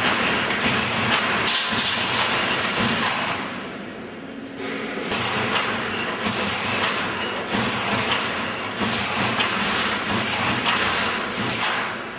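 High-speed wire mesh welding machine for 3–6 mm wire running, a dense steady mechanical clatter with faint repeated ticks. It drops in level for about a second and a half, about four seconds in.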